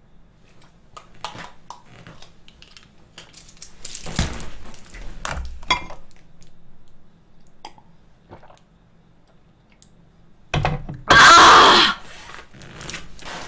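Quiet clicks and taps of small handling sounds, then near the end a loud harsh breath-like vocal reaction from a woman wincing at an extremely sour mega-dose vitamin C tablet.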